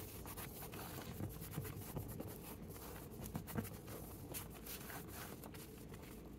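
Faint paper handling: scattered light taps, rustles and scrapes as paper pages and a paper pocket are moved and pressed down by hand.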